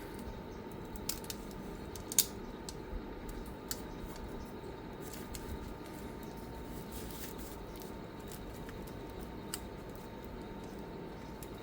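Scattered light clicks and taps of small laptop parts and tools being handled, over a steady low hum; the sharpest click comes about two seconds in.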